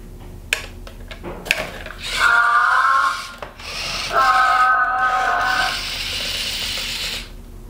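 Leju Pando humanoid robot sounding two held, horn-like electronic chord tones from its speaker, the second longer, about two and four seconds in. A hiss of servo motors runs under them as it tilts and raises an arm, after a couple of sharp clicks in the first second and a half.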